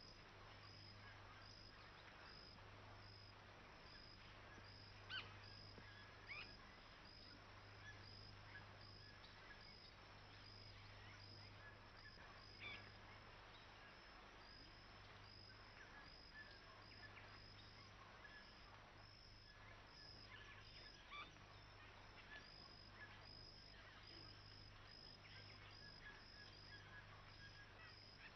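Near silence: faint natural outdoor ambience, with a high chirp repeating about twice a second over a low steady hum, and a few brief faint calls.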